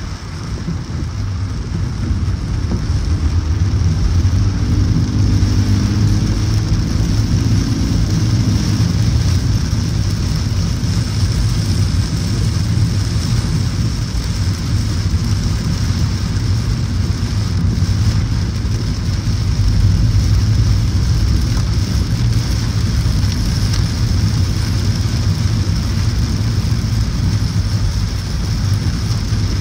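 A car driving in heavy rain: a steady low rumble of road and tyre noise mixed with the hiss of rain and water spray, growing louder over the first few seconds and then holding steady.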